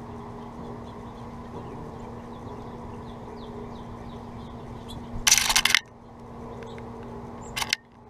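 A finch rummaging in a clear acrylic window feeder, setting the seed rattling against the plastic: a loud rustling clatter of about half a second just past the middle and a shorter one near the end. Under it a steady low hum and faint high bird chirps.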